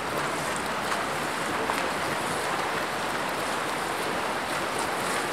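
Steady splashing of water polo players swimming hard across the pool, an even wash of water noise.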